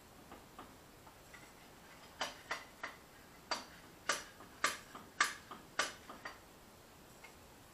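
A hammer striking steel in a run of about ten sharp, ringing blows, roughly two a second, from about two seconds in, with a few light taps before. The blows are knocking a loose pivot bushing out of a Diggit EM15 mini excavator's arm.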